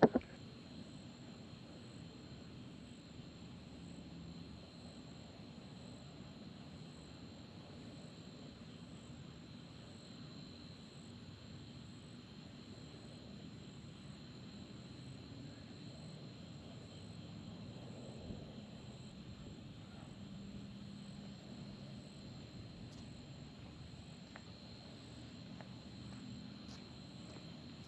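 Faint outdoor night ambience: a steady, high insect drone, with a faint low hum beneath it.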